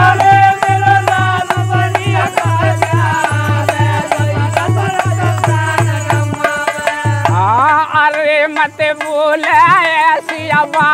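Indian folk bhajan accompaniment: a sustained melody over a steady dholak beat, with sharp jingling percussion ticks. About eight seconds in the drum drops out and a wavering melody line with quick pitch wobbles carries on alone.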